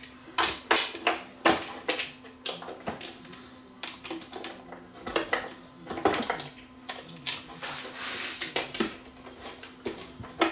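Irregular clicks, knocks and clatter of a Dual 1225 turntable's metal deck being handled, turned over and set into its wooden base, with a faint steady hum underneath.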